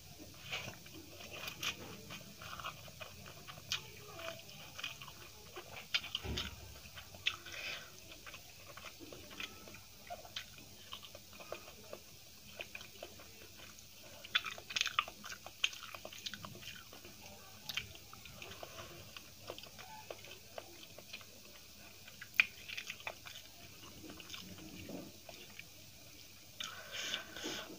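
A person chewing mouthfuls of rice, potato curry and greens eaten by hand, with many short, sharp mouth smacks and small crunches spread unevenly through the chewing.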